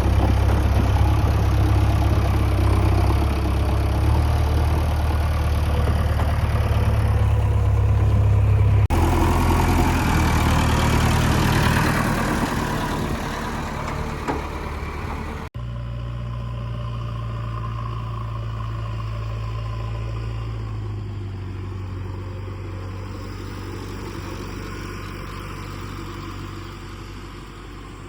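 Diesel engine of heavy farm or earthmoving machinery running steadily with a strong low hum. The sound changes abruptly about nine seconds in and again about fifteen seconds in, after which the engine is quieter and slowly fades.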